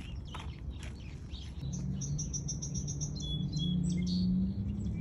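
A bird singing a fast run of short, high chirps that starts about one and a half seconds in and drops lower in pitch near the end, over a steady low hum.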